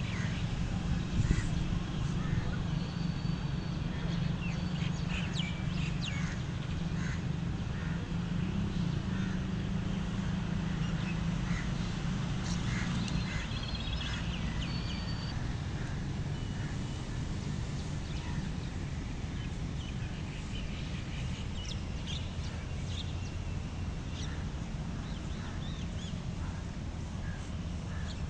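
Outdoor garden ambience: birds calling and chirping at scattered moments over a steady low hum.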